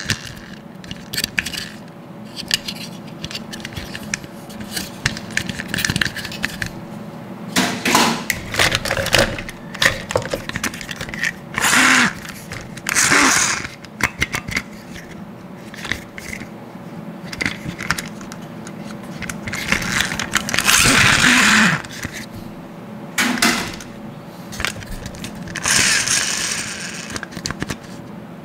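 Plastic toy monster trucks handled in the hands: scattered clicks and rattles of plastic parts, with about half a dozen louder scraping bursts of a second or so.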